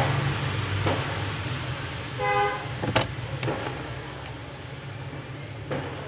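Sharp clicks and taps of a phone frame and small hand tool being handled on a workbench, over a steady low hum. A short horn-like honk sounds about two seconds in.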